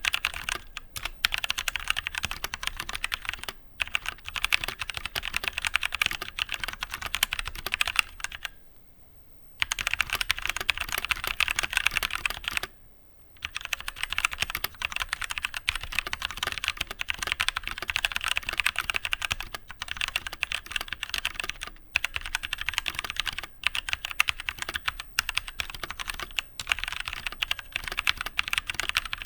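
Fast, continuous typing on a Tecware Phantom mechanical keyboard with Outemu Brown tactile switches (Cherry MX Brown clones): a dense patter of key clicks and keycap bottoming out. It pauses briefly twice, about nine and about thirteen seconds in.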